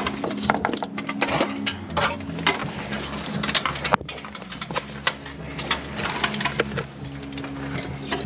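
Irregular sharp clicks and taps of tools and hardware being handled, over steady low tones of music playing in the background.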